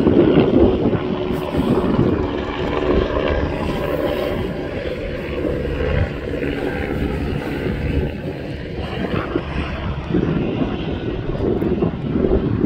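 Steady drone of an aircraft engine, with a low rumble underneath.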